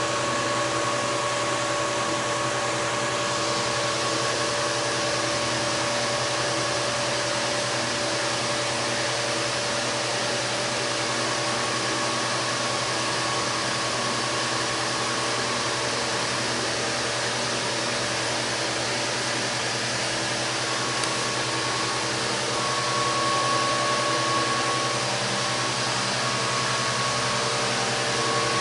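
A steady mechanical whir with a constant hum, unchanging throughout.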